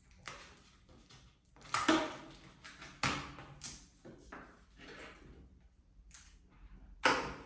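Latex 260 modelling balloon being handled and tied into a knot: a series of short, irregular rubbing and squeaking noises of rubber on rubber and fingers.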